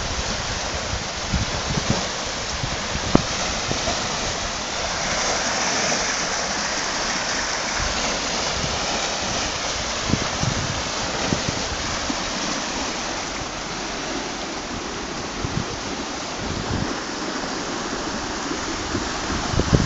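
Fast-flowing river floodwater rushing past in a steady, even roar, with a few low bumps on the microphone.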